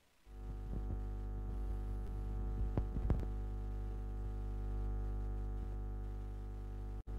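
Steady electrical mains hum on the headset microphone's line, a buzz of many even tones that switches on abruptly a quarter of a second in. A few light clicks and knocks from the microphone being handled fall about three seconds in, and the hum cuts out for an instant just before the end.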